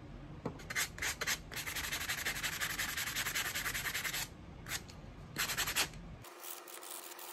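Abrasive sanding block scrubbed back and forth over the steel blade of a carving tool, scouring off rust residue. A few separate strokes, then a quick run of rapid strokes for about three seconds, then two short scrubs.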